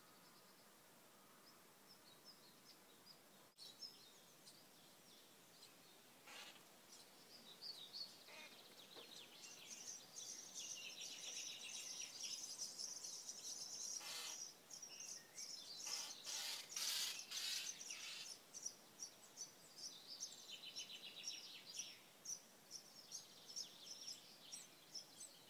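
Common starling nestlings begging inside a nest box: a dense chorus of rapid high chirps and raspy calls. It starts about six seconds in, is loudest around the middle, and comes in shorter bouts near the end.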